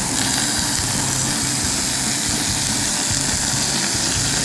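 Shell-on shrimp and langoustines sizzling steadily on a very hot gas grill plate as they are basted with garlic-parsley olive oil, over a low steady hum.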